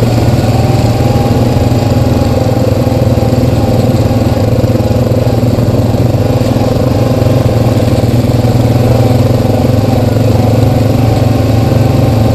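Honda Rancher 420 ATV's single-cylinder four-stroke engine running steadily at an even trail speed, with no revving, heard close up from the handlebars.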